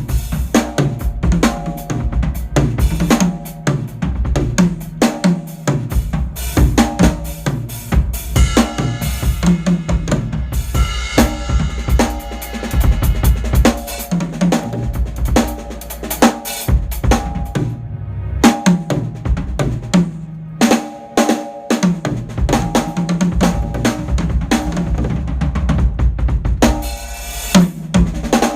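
Acoustic drum kit played continuously in grooves and fills, with kick drum, snare with rimshots, hi-hat and cymbals.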